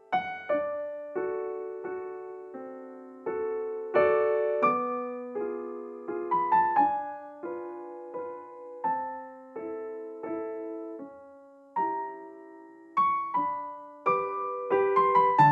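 Background piano music: a melody of single notes and chords, about two a second, each struck and left to fade.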